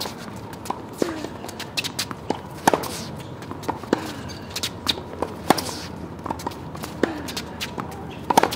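Tennis balls popping off rackets and bouncing on an outdoor hard court at irregular intervals during a feeding drill, with the scuff of a player's footsteps between shots.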